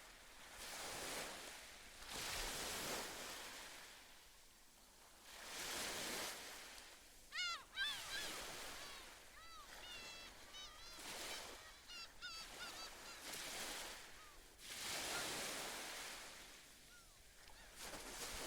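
Gentle waves washing onto the shore in slow swells every few seconds, with a seabird giving a run of short, repeated calls from about seven seconds in, and once more near the end.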